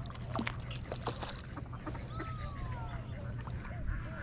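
Ducks calling on the pond: several short calls and one longer call that falls in pitch near the middle. A few sharp splashes from a hooked trout thrashing at the surface come in the first second.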